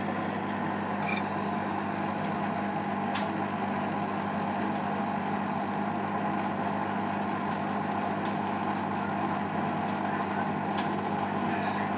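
Beko Eco Care WMA 1510 W washing machine in its final spin: a steady motor hum and drum whir at constant speed, with a few faint clicks.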